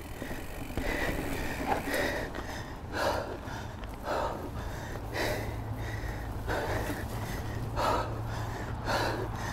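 A mountain biker breathing hard from the effort of pedalling uphill, with a loud breath about once a second over a steady low hum.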